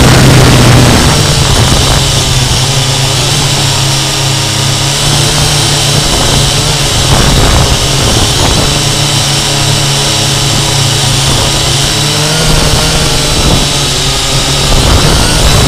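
Syma X8C quadcopter's four motors and propellers running in flight, heard up close from the camera mounted on the drone: a loud steady buzzing hum with whining tones that drift up and down a little as the motor speed changes, over a steady hiss.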